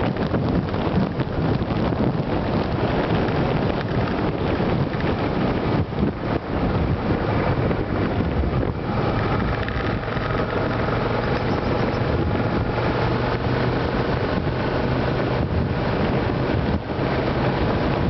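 Wind rushing loudly over a camera microphone mounted above a riding motorcycle's windscreen, with the Suzuki Gladius 400's V-twin engine running underneath. Around the middle, the engine note comes through more steadily under the wind.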